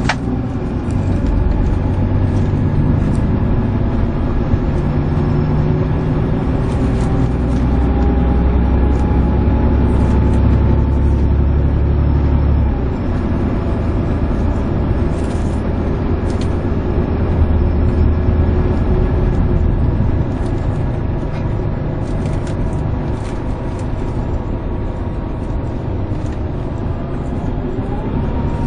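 Volvo B11RT coach's six-cylinder diesel engine pulling hard under acceleration, heard from inside the coach, a deep rumble with a whine that climbs in pitch. About 13 seconds in the heavy low note drops suddenly as it changes gear, then it pulls on.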